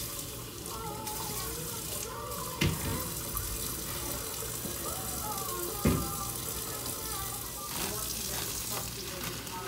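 Kitchen faucet running water into a stainless sink while vegetables are rinsed in a plastic colander under the stream. Two sharp knocks stand out, about three and six seconds in.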